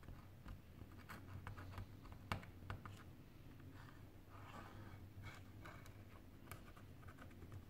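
Faint clicks and light scraping of a small precision screwdriver turning tiny screws in a smartphone's metal midframe, with one sharper click about two seconds in, over a faint low hum.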